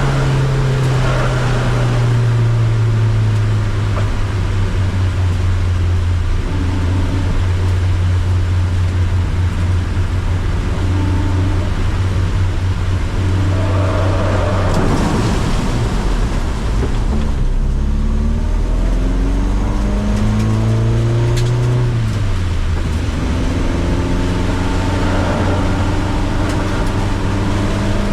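Car engine running hard on a circuit, its pitch climbing in several rising glides and falling back between them as it revs through the gears and lifts off, with a rushing hiss swelling about halfway through.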